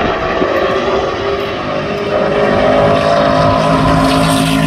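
Stadium Super Trucks' V8 engines racing past the crowd, a loud steady engine note that slides down in pitch as the trucks go by.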